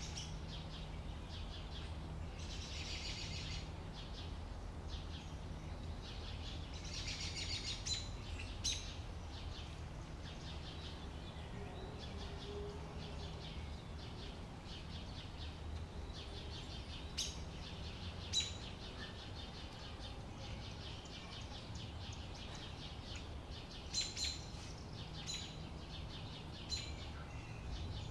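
Outdoor summer ambience: wild birds chirping, with two bursts of rapid high trilling in the first several seconds and short sharp chirps scattered through the rest. A steady low rumble runs underneath.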